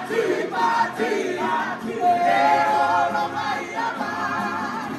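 A group of men singing loudly together, accompanied by strummed ukuleles, with a long held note in the middle.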